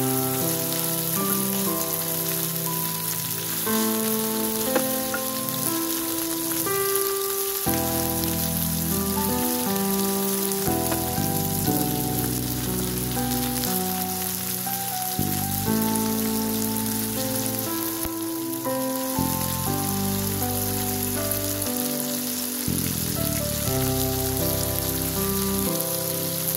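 Sausage slices frying in a pan with a steady sizzle, under background music of held notes and a bass line that changes every second or two.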